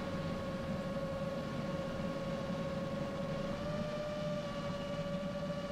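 Steady whine of a 7-inch long-range quadcopter's brushless motors and propellers in forward flight, over a low rushing noise. The pitch steps slightly higher about three and a half seconds in.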